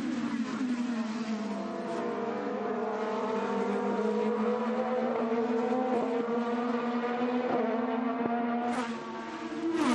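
IndyCar's twin-turbo V6 engine running at speed at a fairly steady pitch, falling at the start and dipping briefly near the end before picking up again.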